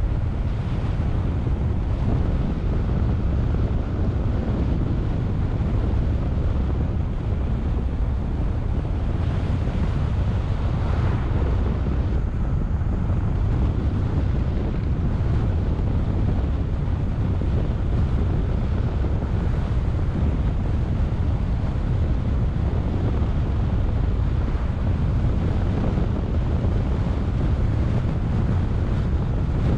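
Steady low rumble of wind buffeting the microphone, mixed with tyre and road noise from a car driving at town speed.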